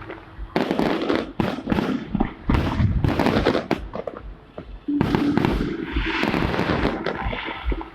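Fireworks display going off: rapid overlapping bangs and crackling bursts with deep thumps, easing briefly in the middle before a sudden louder volley about five seconds in.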